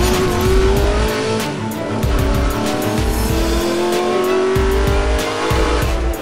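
Intro music with a pulsing bass beat, overlaid by a racing-car engine sound effect that revs up in two long rising sweeps.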